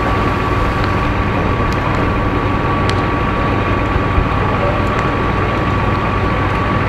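Fire engines and their pumps running, a steady rumble with a thin, steady high whine over it.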